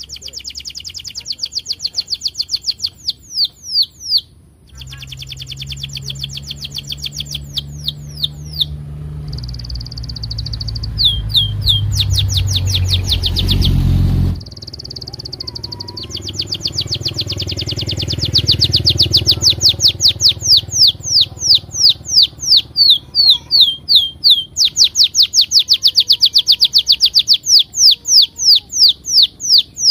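Canary singing long, fast trills of repeated high falling chirps, phrase after phrase with brief pauses. A low rumble runs underneath through the middle and cuts off suddenly about halfway.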